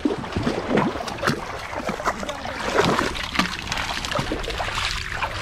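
People wading through shallow water, feet sloshing and splashing irregularly with each step.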